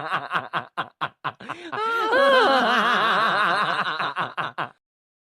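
A person's laughter: a quick string of short chuckles, then a long, high, wavering laugh that stops abruptly near the end.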